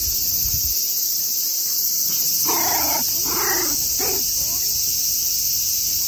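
Cicadas buzzing in a loud, steady, high-pitched drone. About two and a half seconds in, three short animal calls sound over it, one after another.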